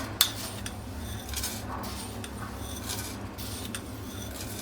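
A metal spoon scooping fennel seeds and clinking against a dish a few times, with scattered light taps.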